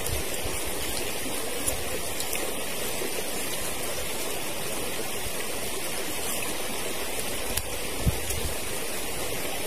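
Forest stream running steadily, with one short knock about eight seconds in.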